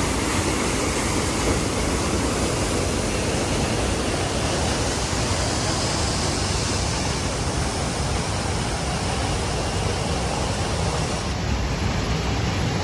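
Steady rush of flowing water, an even, unbroken noise.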